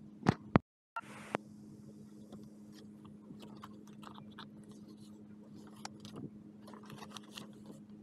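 Handmade paper journal being handled: pages turned and paper inserts rustled, with scattered faint crinkles and taps over a steady low hum. Two sharp knocks come just before a brief dropout under a second in.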